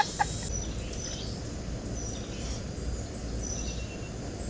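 Outdoor ambience: a steady low rumble of background noise with a few short, faint high bird chirps scattered through it.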